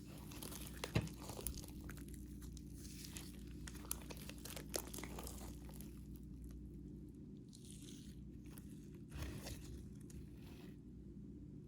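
Slime being squished and worked by hand, with irregular sticky crackling and sharp popping clicks, the loudest about a second in, over a steady low hum.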